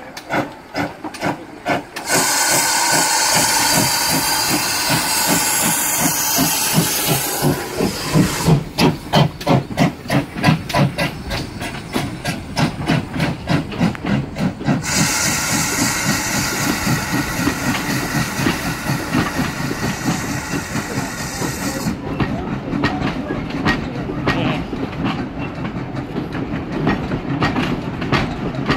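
Steam locomotive working, its exhaust beats coming in a steady rhythm that gradually quickens. Hissing steam comes in two long bursts over the beats, from about two to seven seconds in and again from about fifteen to twenty-two seconds in.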